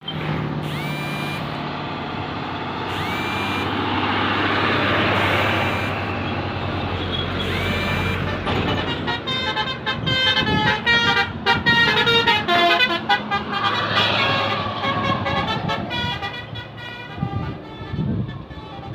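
Basuri V3 telolet musical horn on a bus, playing a fast tune of quickly changing notes from about eight seconds in. Before that, the bus engine runs with a steady hum and noise, broken by a few short rising tones.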